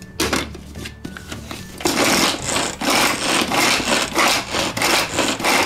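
Hand-operated plastic food chopper whirring as it is worked in repeated strokes, about two a second, its blades cutting halved onions. A knock as the lid is snapped on comes right at the start.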